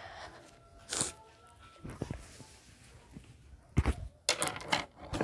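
Handling noise: scattered sharp clicks and knocks as objects and the phone are moved about, with a cluster of several quick knocks about four seconds in.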